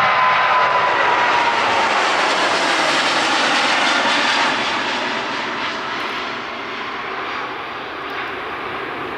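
Emirates Boeing 777-300ER's twin GE90-115B engines at take-off thrust as the airliner climbs away just after rotation: a loud, dense jet noise with a whine that slides slightly lower over the first two seconds, then fading from about four and a half seconds in as the aircraft moves off.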